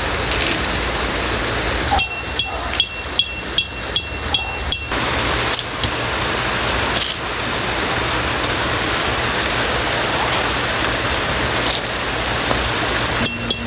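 Hammer driving a metal tent peg: a run of about ten sharp, ringing metallic strikes, about three a second, between about two and five seconds in, with another run of strikes starting near the end.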